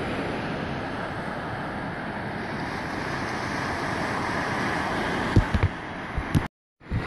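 Ocean surf washing steadily onto a sandy beach, with wind buffeting the microphone in a few short gusts near the end. The sound drops out completely for a moment just before the end.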